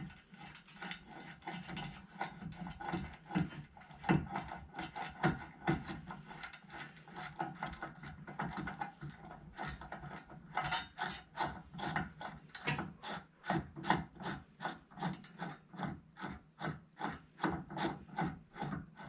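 Repeated back-and-forth rubbing or scraping strokes on wood, uneven at first, then settling into a steady rhythm of about two strokes a second.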